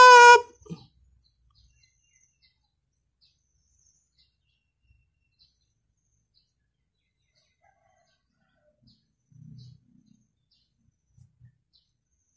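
A held sung voice note cuts off abruptly at the very start. Then near silence, with faint, sparse bird chirps in the background and a brief faint low murmur about two-thirds of the way through.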